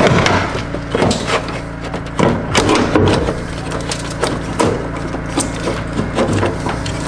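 Blower motor being twisted and worked loose in its plastic housing: irregular knocks, clicks and scraping of plastic against plastic.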